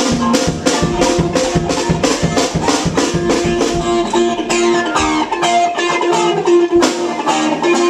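Rock band playing during a sound check: electric guitar over a drum kit keeping a steady beat of about four strokes a second.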